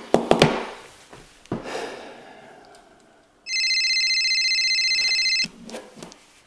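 Knocks as a mobile phone is set down on a wooden desk, then the phone rings once: a steady, rapidly trilling electronic ring lasting about two seconds, followed by small handling clicks as it is picked up.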